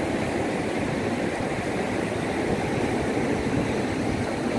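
Steady rush of turbulent water churning through a tidal sluice gate. One gate leaf is broken and will not close, so the rising tide pours through unchecked.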